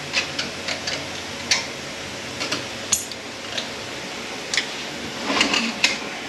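Light metallic clicks and taps, irregular and scattered, from hand tools working a snap ring inside a Ford 10R80 ten-speed automatic transmission case.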